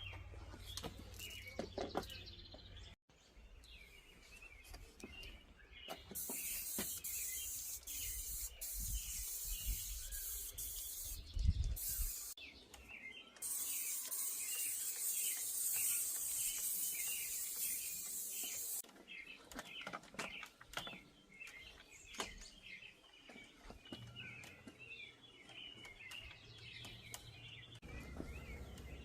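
Small songbirds chirping steadily, with two long spells of high hiss in the middle, about six and five seconds long, which are the loudest sound.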